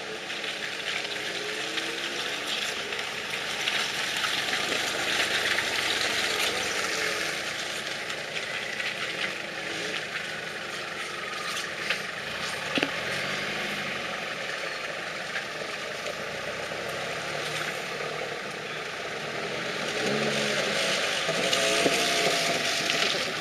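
Off-road 4x4 engines running and revving as the vehicles climb a muddy track, over a steady hiss.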